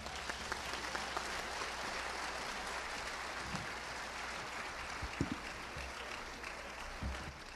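Audience applauding at the end of a song, steady and then easing off slightly near the end, with a few low thumps.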